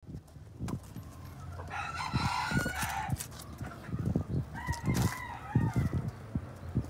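Rooster crowing twice, each crow about a second and a half long, over scattered low thumps and knocks.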